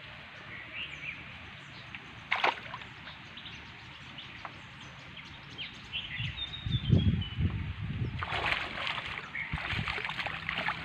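Water splashing and sloshing as a cast net holding fish is hauled up out of the water, getting busier from about six seconds in. Birds chirp in the background, and there is one sharp knock a couple of seconds in.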